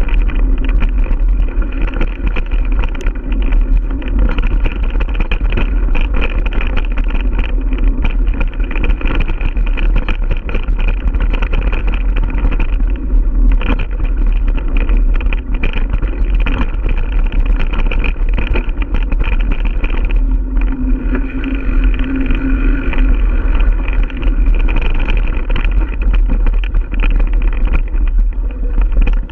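Giant Stance 1 mountain bike ridden over a bumpy dirt trail: steady wind rumble on the bike-mounted camera, with tyre noise and frequent rattles and knocks from the bike over roots and bumps.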